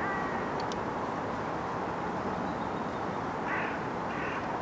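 Steady rushing outdoor background noise, with a few short bird calls: one right at the start and two more about three and a half and four seconds in. Two faint clicks come just over half a second in.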